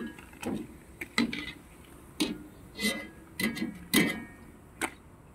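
Wire spider strainer tapping and clinking against a steel wok while fried fish crackers are lifted out of the oil: about seven irregular sharp metallic taps, some ringing briefly.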